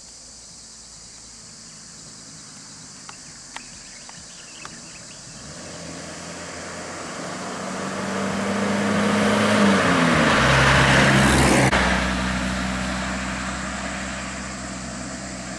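Isuzu light truck driving past close by. Its engine and tyre noise grow steadily louder and then fade, and the engine note drops in pitch as it passes.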